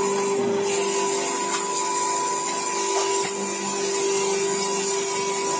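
Electric tyre buffing machine, driven by a three-phase motor, running steadily with its rasp head scraping the rubber of a truck tyre as it turns: an even machine hum under a high hiss.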